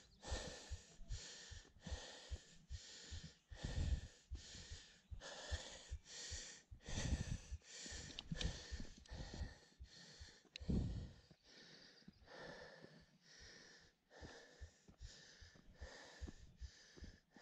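A hiker panting hard, with quick, regular breaths, out of breath from a steep climb. There are a few louder low thumps among the breaths.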